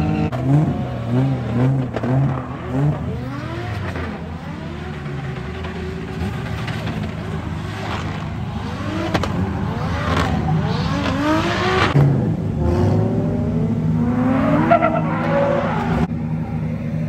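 Drift car engines revving hard, the pitch climbing and falling over and over, with a quick series of pulsing blips in the first few seconds, and tyres screeching as a car slides sideways.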